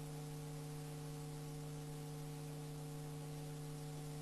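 A steady low hum with a stack of overtones, unchanging in pitch and level.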